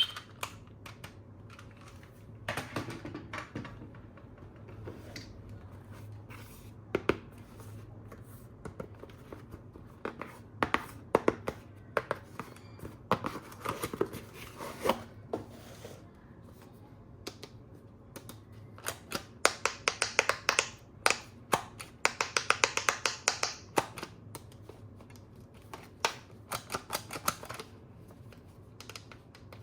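Hard plastic toy parts and packaging being handled: scattered clicks, taps and scrapes, with two runs of rapid clicking about two-thirds of the way through.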